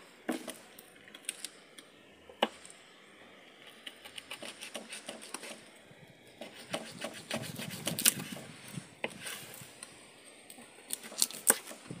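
Knife scraping and cutting along a cavalli (jack fish) on a wooden chopping board while the fish is cleaned, in runs of quick scratchy strokes with sharp knocks of the blade on the wood.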